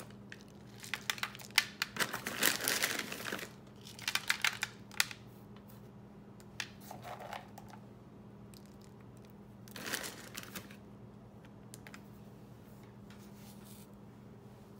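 Plastic food packaging crinkling and rustling in several bursts as it is handled, with quieter stretches between, over a faint steady hum.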